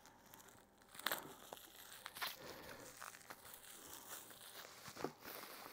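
Bubble wrap crinkling and rustling as it is pulled off a small glass dropper bottle, with a few sharper crackles.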